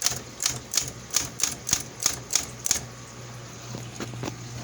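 Smith Corona electric typewriter being typed on: a run of about nine sharp key strikes, roughly three a second, then a few fainter strikes near the end, over the steady hum of its motor.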